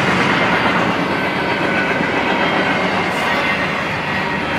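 Double-stack intermodal container well cars rolling past: a steady loud rumble and rattle of steel wheels on the rails, with faint thin squealing tones above it.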